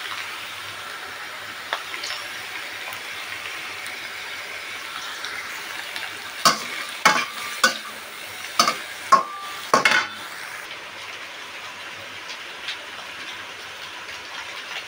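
Egg and vegetable stir-fry sizzling steadily in a stainless steel wok. About halfway through, a metal spatula strikes and scrapes the wok in a quick run of about seven sharp clanks as the food is tossed.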